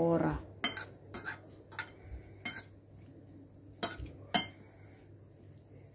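A metal utensil clinking against a white ceramic bowl as a cucumber, tomato and onion salad is tossed: about eight sharp clinks at irregular times, the two loudest a little past halfway.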